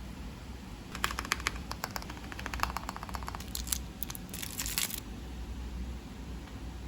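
Plastic keycaps clicking onto the switches of a mechanical keyboard: a quick, irregular run of sharp clicks for about two seconds, followed by two short bursts of rattling.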